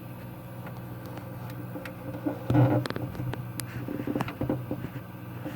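Handling noise from moving the recording device: scattered small clicks and rustles, with a louder bump about two and a half seconds in, over a steady low hum.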